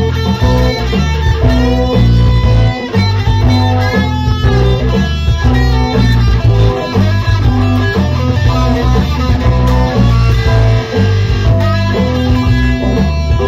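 SG-style electric guitar being played, a run of picked notes and chords with deep bass notes sounding underneath.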